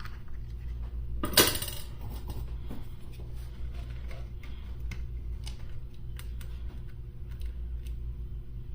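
Small metallic clicks and light scrapes of a soldering iron and desoldering braid working the old solder off a circuit board's pins, with one louder clink about a second and a half in, over a steady low electrical hum.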